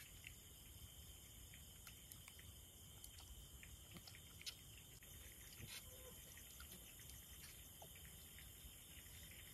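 Near silence: a faint steady hiss with a few soft, scattered clicks from eating out of a bowl with a fork.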